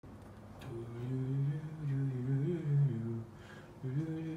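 A man humming a tune in held, low notes that step up and down. He breaks off briefly just after three seconds in, then starts humming again.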